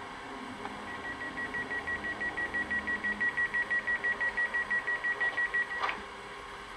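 Sound decoder of a Brawa H0 model DB Twindexx Vario train playing a rapid run of high beeps, about six a second, growing louder and stopping with a click near the end.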